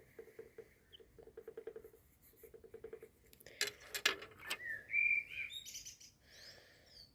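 Birds calling: short runs of rapid pulsing notes, then whistled chirps. About halfway through there is a brief loud rustle or clatter.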